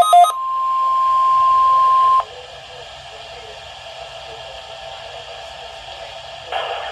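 NOAA Weather Radio weekly test heard through a radio receiver. It opens with a quick burst of warbling data tones, then a steady single-pitch alert tone for about two seconds that cuts off sharply. A low radio hiss follows.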